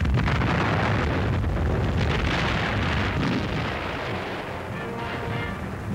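An artillery shell bursting: a loud wash of noise with a deep rumble that slowly dies away over several seconds. Music faintly comes in near the end.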